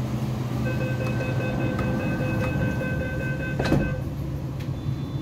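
MTR East Rail Line R-Train's door-closing warning tone sounding steadily for about three seconds over the train's steady hum, with the passenger doors shutting with a knock just before the tone stops.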